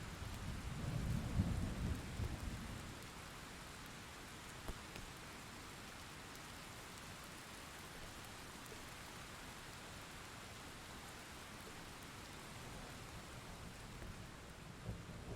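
Thunderstorm: steady rain hissing throughout, with a deep roll of thunder rumbling in the first few seconds and fading, and another rumble starting to build near the end.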